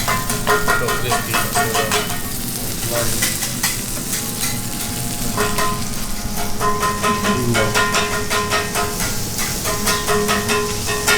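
Kobe beef (A5 Wagyu) sizzling steadily on a chef's hot griddle.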